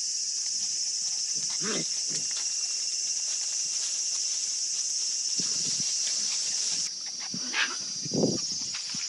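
A steady, high-pitched insect chorus, over which a few short sounds from playing puppies come and go, the loudest near the end.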